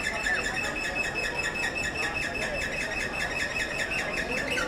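Metro escalator running, its mechanism giving a fast, even, squeaky ticking. Crowd voices murmur faintly underneath.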